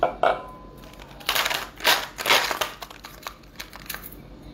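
Ice cubes being cracked loose from a plastic ice cube tray: a sharp crack at the start, then a loud crackling stretch in several surges, followed by a few smaller clicks.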